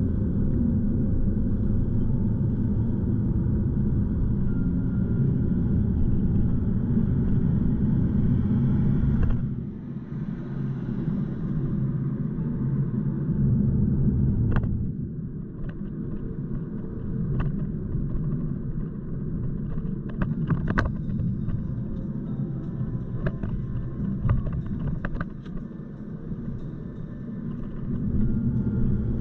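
Steady low road and engine rumble of a car heard from inside the cabin while driving, dropping quieter about a third of the way in and rising again near the end, with scattered short clicks and knocks in the second half.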